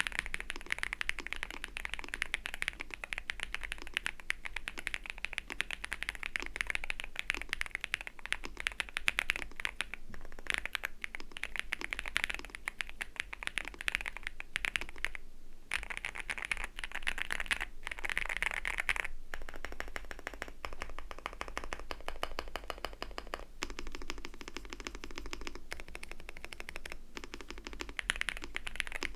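A NuPhy Gem80 mechanical keyboard, fully stock with an FR4 plate and Mint switches, being typed on in a fast, continuous stream of keystrokes. There is one brief pause about halfway through.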